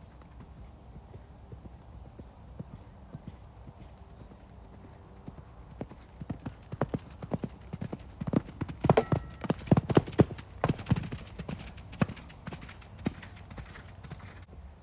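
Hoofbeats of a ridden horse on sand arena footing. They grow louder from about six seconds in, are loudest around nine to eleven seconds as the horse passes close, then fade.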